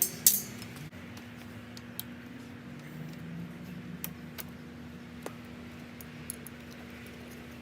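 Metal clicks and clinks of hand tools and parts while a 1990s mountain bike is taken apart. A sharp clatter comes right at the start, then single clicks every second or so.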